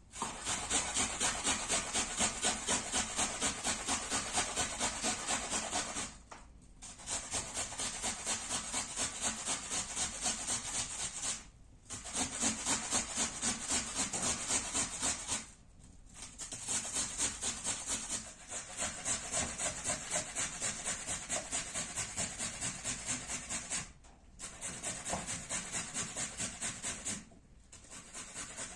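Vegetables being grated by hand on a grater: rhythmic rasping strokes, about two to three a second, in runs of several seconds with brief pauses between them.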